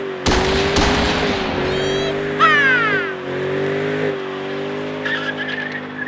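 Ford Mustang GT S197's V8 held steady during a burnout, with brief dips in revs, as the rear tyres spin and squeal on the pavement. A tyre squeal rises near the end.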